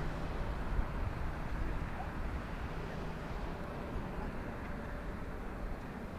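Jet engine noise from a Boeing 787-8's Rolls-Royce Trent 1000 turbofans as the airliner climbs away after take-off: a steady, deep rushing rumble that slowly fades, losing its higher hiss about halfway through.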